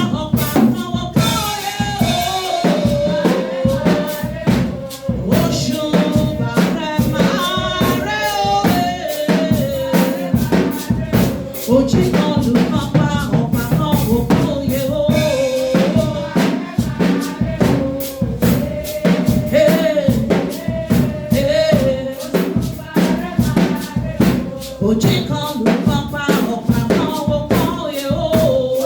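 Worship music: a drum kit keeps a steady beat under a wavering sung melody.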